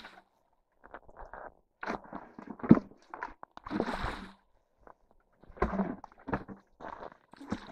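Irregular crunching and scraping of packed snow and ice: footsteps in snow and the clearing of icy debris, with a sharper knock about three seconds in.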